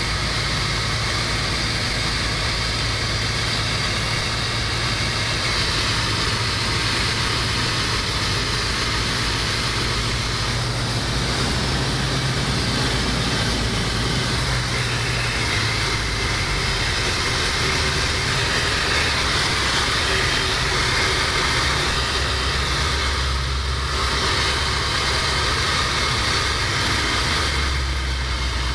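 Steady drone of a light aircraft's engine and propeller with rushing air noise, heard from inside the cockpit in flight. The low engine note changes about halfway through.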